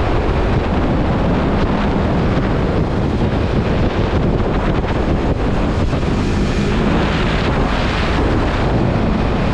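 Heavy wind buffeting the microphone of a Yamaha MT-03 motorcycle riding at speed, with the engine's hum faintly showing through at times.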